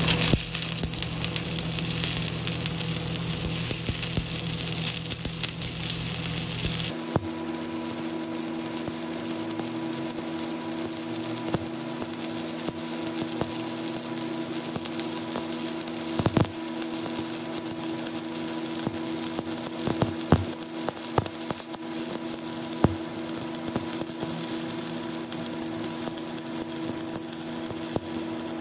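Stick welding arc crackling and sizzling steadily as the rod burns into the joint between a steel tube and plate, with a few sharp pops of spatter. About seven seconds in the background changes abruptly and a steady hum runs under the crackle.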